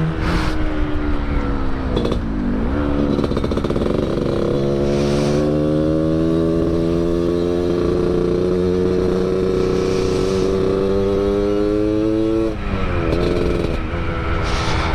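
Yamaha RX-King 135cc two-stroke single-cylinder motorcycle with a 'kolong' exhaust tuned for a deep growling 'ngorok' note, being ridden. The revs dip briefly and pick up again about two seconds in and near the end. In between, the engine note climbs slowly and steadily as it pulls.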